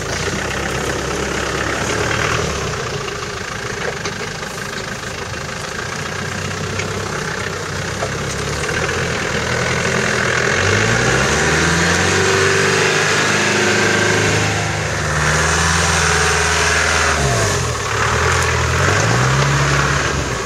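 Land Rover Discovery engines running as the 4x4s crawl over rough, muddy ground. The engine is low and steady at first, revs up about halfway through, drops away briefly near the end, then revs up again.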